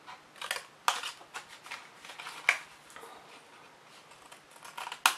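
Scissors snipping through cardstock, a series of short sharp snips with paper rustling between, as the card is cut up its score lines and notched for box flaps.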